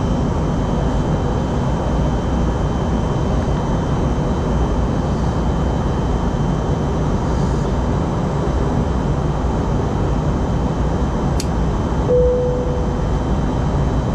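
Steady airliner cabin noise in flight: engine and airflow rumble, even throughout. About twelve seconds in, a single short chime sounds, the seatbelt sign coming on for the descent.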